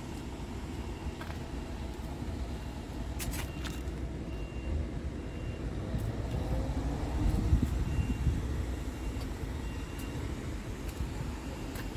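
Steady low rumble of vehicle engine noise that swells for a second or two past the middle, with a few faint short high beeps and a couple of light clicks.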